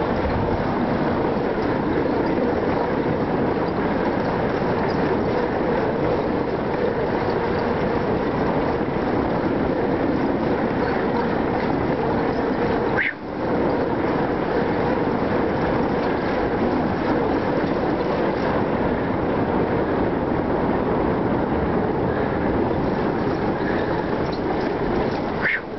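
Steady rushing noise from riding a bicycle along a bridge deck: wind buffeting the microphone, mixed with the tyres rolling. It dips out briefly about halfway through.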